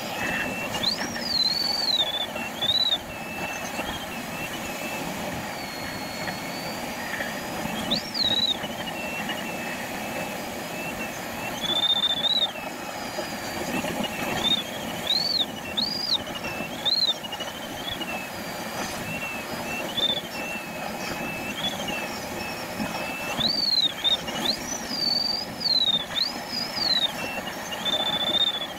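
Glider cockpit in flight: a steady rush of airflow over the canopy, with the electronic variometer's tone sliding up and down in pitch and now and then holding steady. The rising swoops mark the glider climbing faster in lift as it circles.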